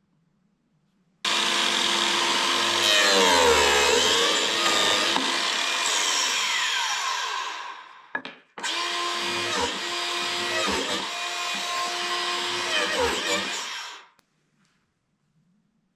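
Cordless biscuit joiner running in two long runs, its motor pitch dipping as the blade plunges into the end grain of wooden boards to cut biscuit slots. The first run winds down about eight seconds in; the tool starts again at once and stops sharply near the end.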